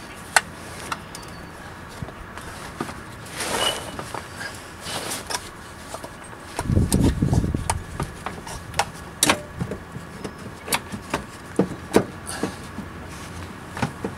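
Scattered plastic and metal clicks and knocks of hands working the evaporative emissions (evap) canister back into place under a car, with a denser spell of rubbing and knocking about seven seconds in. The canister is fouling the newly fitted trailer hitch.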